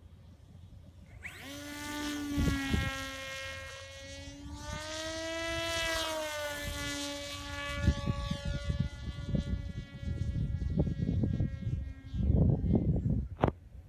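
Electric RC flying wing's brushless motor and pusher propeller whining in flight: the whine comes in about a second in, swells and rises a little in pitch around the middle, then drops and fades away. Low rumbling gusts of wind on the microphone take over in the second half, with a sharp click near the end.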